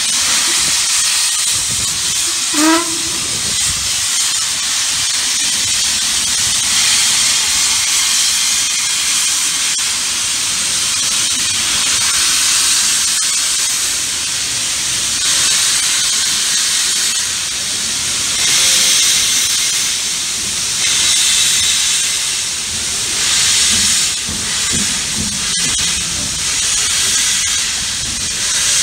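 LMS Princess Royal class Pacific No. 6201 Princess Elizabeth hissing loudly as steam blows from its open cylinder drain cocks while it pulls slowly away. The hiss swells and eases every few seconds, and a brief pitched sound rising in pitch comes about three seconds in.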